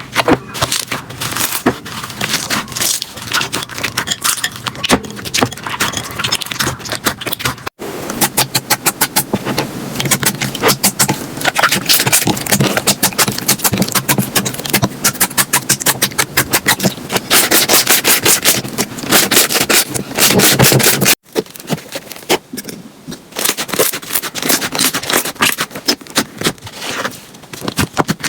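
Slime being squeezed and pressed by hand, making dense, rapid clicks and crackling pops. The sound changes abruptly about 8 and 21 seconds in.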